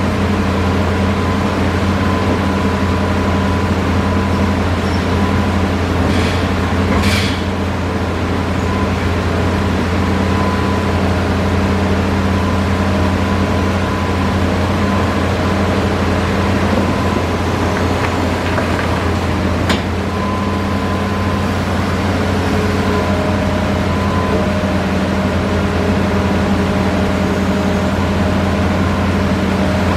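Hitachi Zaxis 5G excavator's diesel engine running steadily with a deep hum, with a short rattle about seven seconds in and a sharp click about twenty seconds in.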